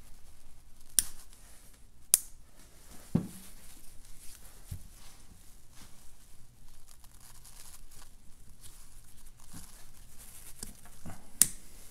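Handling noise from a Lucas K2F magneto being turned over in the hands on a workbench. A few sharp clicks, one at about a second in, one just after two seconds and one near the end, with a duller knock around three seconds and low rustling between them.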